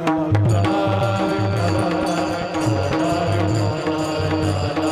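Kirtan accompaniment: a drum beats a steady rhythm under a held drone note, with chanting voices and the audience clapping along.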